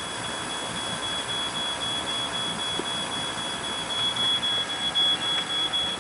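A steady, high-pitched electronic tone like a piezo beeper, over the even hiss and rumble of the boat underway. The tone grows a little louder about four seconds in.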